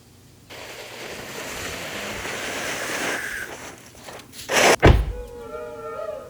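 A rushing noise starts suddenly, swells for about three seconds and fades, and near the end a sharp, loud burst comes. Right after it, drone-flute music begins, with several notes held together and moving slightly.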